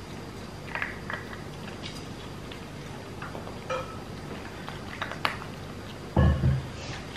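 Shetland sheepdog puppy eating from a ceramic bowl: scattered crunches and small clicks of food against the bowl, with one louder, deeper knock about six seconds in.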